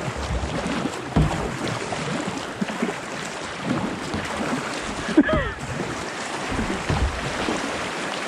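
Fast floodwater rushing past a kayak, with irregular splashes and hull knocks. There is a brief gliding pitched sound about five seconds in.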